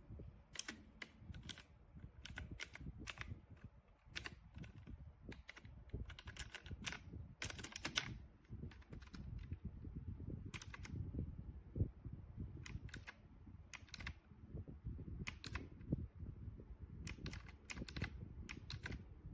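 Typing on an HJK917 mechanical keyboard with blue switches: irregular clicky keystrokes, some in quick runs, others singly.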